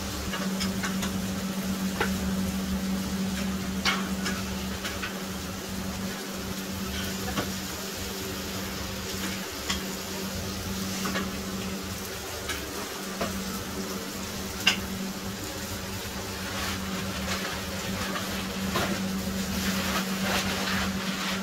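Steady sizzle of burger meat frying on a flat-top griddle, over a constant low hum, with scattered clicks and taps of utensils.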